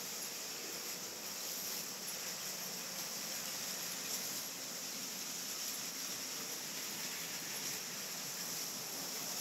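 Steady high-pitched hiss with no distinct events, loudest in the upper register.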